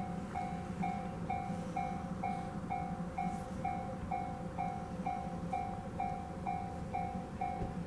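Railway level crossing warning bell ringing, a clear electronic ding repeating evenly about two and a half times a second over a low steady rumble. It is the signal that a train is approaching.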